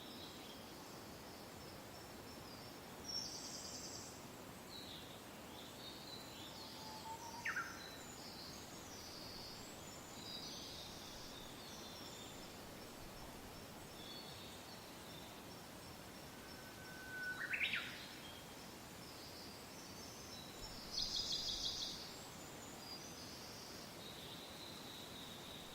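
Soft steady wind with several birds calling and singing. Twice a bird gives a quick rising whistle, and a rapid trill comes about three-quarters of the way through.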